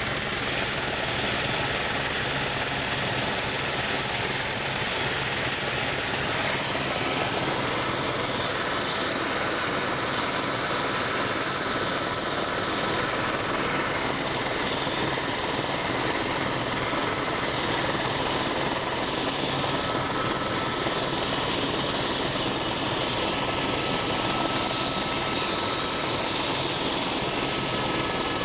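Steady drone of an aircraft's engine in flight, heard on board.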